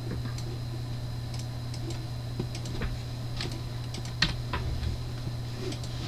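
Scattered computer mouse and keyboard clicks, about a dozen irregular taps with the loudest about four seconds in, over a steady low hum.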